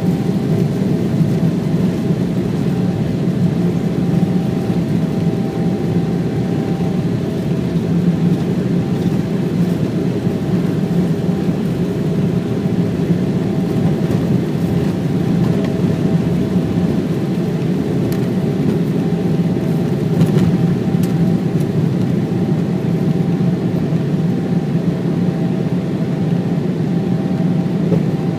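Steady cabin noise inside a Boeing 777-200ER: an even low engine drone with a faint steady whine above it.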